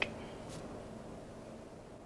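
Quiet room tone: a faint, steady hiss with no distinct sound.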